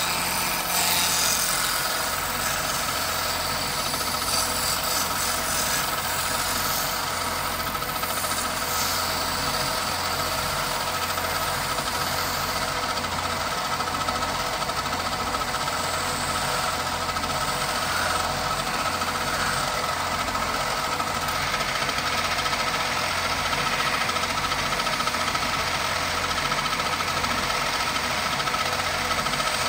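Wood lathe running steadily, with a hand chisel cutting a spinning wooden blank and scraping off shavings.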